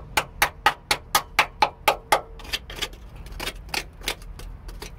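Small screwdriver tapping and prodding the rusty steel of a Mazda MX-5's rear wheel arch: a quick, even run of sharp taps, about five a second, then fewer and less regular taps. He is testing the corroded metal around a mounting hole for rot, and this bit feels solid.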